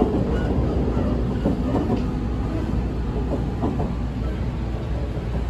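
In-car running sound of a JR Central 313 series 3000-subseries electric multiple unit: a steady low rumble of wheels on rail, with several knocks as the wheels pass over rail joints.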